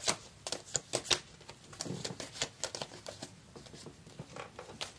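Tarot deck being shuffled by hand: a run of quick, irregular papery clicks and taps of the cards, to draw a clarifier card.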